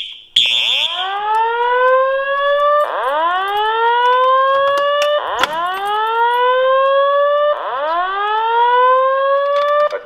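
A fire alarm horn gives one last short buzzing blast just after the start. A fire alarm speaker then plays a slow whoop tone: four rising sweeps of a little over two seconds each, stopping near the end.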